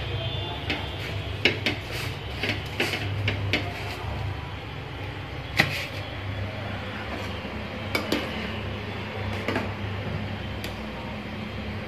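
Kitchen handling sounds at a gas stove: scattered light clicks and clinks of utensils and cookware over a steady low hum, with one sharper knock about halfway through.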